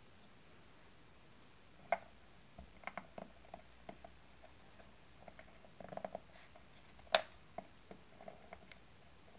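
Soft, irregular clicks and taps of a tiny wooden rolling pin and small utensils on a pastry mat while a brown sheet of dough is rolled out. A sharper knock comes about two seconds in, and the loudest one about seven seconds in.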